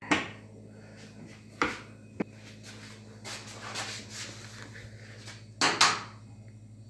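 A few sharp knocks and clatters of hard objects being handled, the loudest a close pair near the end, with softer rustling between them, over a steady low hum.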